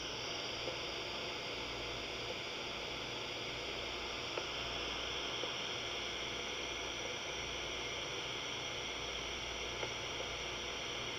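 Steady tape hiss from a cassette player playing back a stretch of recording with no voice on it, with a low hum underneath and a few faint clicks.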